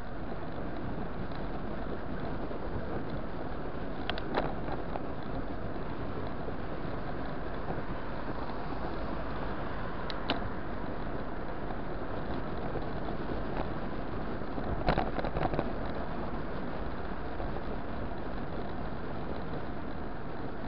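Steady rush of wind and road noise on the microphone of a camera riding on a bicycle, broken by a few short clicks and rattles: one about four seconds in, one about ten seconds in, and a louder cluster about fifteen seconds in.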